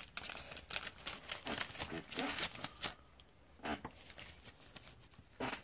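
Trading cards in clear plastic cases and sleeves being handled and set down on a table: a run of light plastic clicks, taps and rustles.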